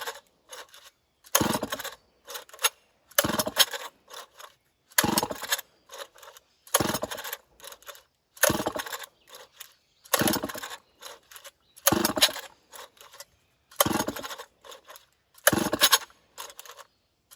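Old chainsaw's recoil starter cord being yanked about ten times in a steady rhythm, roughly one pull every two seconds, each pull a sharp zip of the cord turning the engine over. The engine never fires: the saw is not starting from cold.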